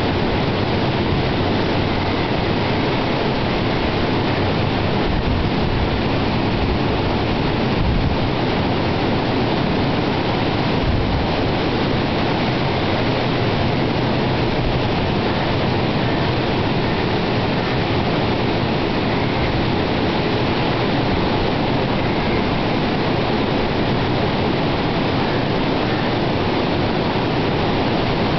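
Rough sea surf breaking on black rocks and a sand beach, heard as a continuous, even wash of noise, mixed with strong wind.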